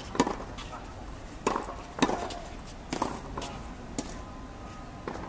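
Tennis balls struck by rackets and bouncing on the court in a practice rally: sharp pops about every half second to a second, the loudest about two seconds in.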